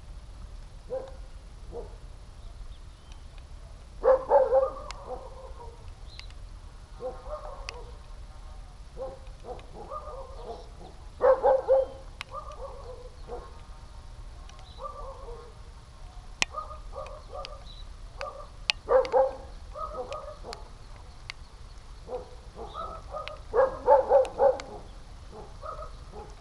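A dog barking in short runs of several barks each, with four louder runs spread through and quieter barking in between.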